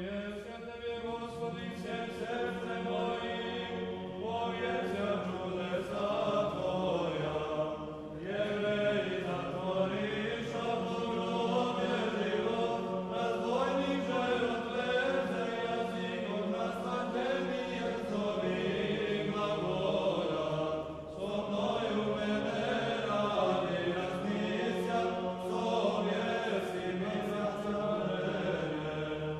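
Background music: a choir chanting in long held notes.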